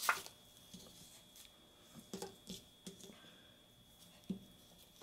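Faint scattered taps and clicks of stamping supplies being handled on a tabletop, among them a clear acrylic stamp block being picked up, with a sharper click right at the start.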